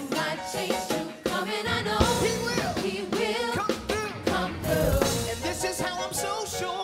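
Live gospel music: a lead singer's wavering vocal runs over backing singers and a band with drums.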